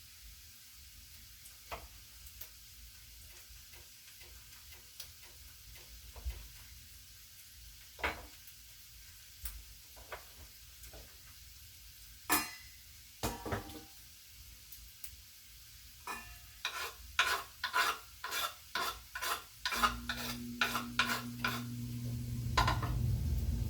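A spoon stirring in a vessel: scattered light clicks at first, then quick repeated clinks against the vessel's side, about three or four a second, from about two-thirds of the way in. A low steady hum comes in near the end.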